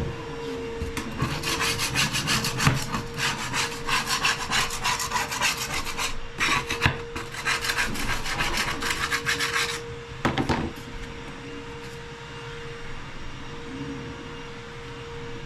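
A hand tool worked in rapid back-and-forth strokes, rubbing or sawing, for about nine seconds, then stopping. A faint steady hum runs underneath.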